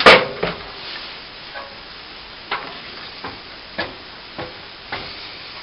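A plastering tool scraping and working wet cornice cement into a join along a cornice. A loud sharp scrape comes at the start, then a run of short scraping strokes about once a second over a steady hiss.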